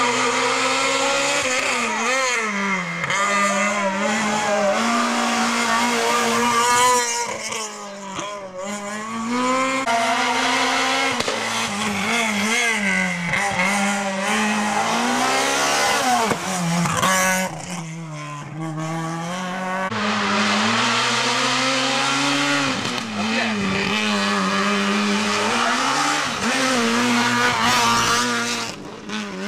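Rally cars at full race pace, one after another. Each engine revs high and drops back in repeated rising and falling sweeps as the car brakes for a corner and powers out of it.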